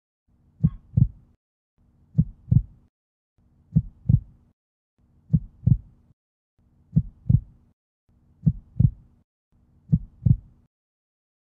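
Heartbeat sound effect: seven double thumps, lub-dub, evenly spaced about one and a half seconds apart, with a faint hum under each beat.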